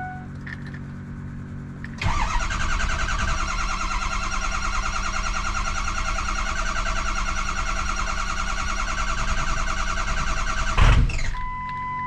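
Starter cranking the 2003 Ford F350's 6.0L Powerstroke V8 turbo diesel for about nine seconds with a fast, even pulse. The engine almost catches but doesn't start on the new batteries, and the cranking ends in a brief loud burst. The truck's warning chime beeps before the cranking and sounds a steady tone after it.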